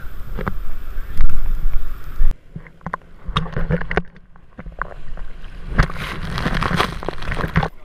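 Wind rumbling on the camera microphone with a few knocks, then, after a sudden cut about two seconds in, water splashing and sloshing over a camera at the surface of the surf. The splashing comes in broken bursts that grow denser near the end as spray washes over the lens.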